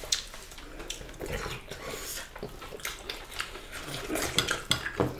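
Mukbang eating sounds: chewing and mouth noises of people eating rice, beef stew and cucumber-and-tomato salad with their hands, with irregular small clicks and clinks of fingers and utensils on ceramic plates and bowls.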